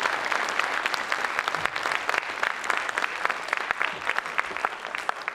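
Audience applauding: many hands clapping together in a dense, steady patter that eases slightly near the end.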